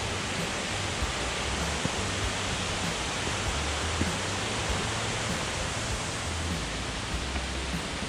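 Steady rushing of the Gollinger Wasserfall, a mountain waterfall cascading down the gorge close by, with a few faint ticks.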